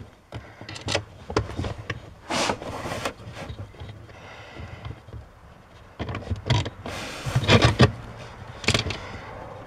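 Hands working up under a dashboard at the accelerator pedal assembly, trying to thread its top fastener by hand: irregular scrapes, rustles and small clicks of skin, sleeve and fingers against plastic and metal, loudest about two and a half and seven and a half seconds in.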